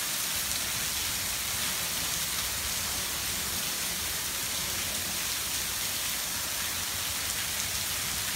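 Heavy hurricane rain pouring steadily onto a screened pool enclosure and pool, an even hiss with no breaks.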